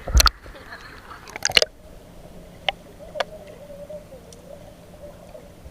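Swimming-pool water heard with the microphone underwater: two loud knocks or splashes in the first two seconds, then scattered sharp clicks over a faint wavering tone.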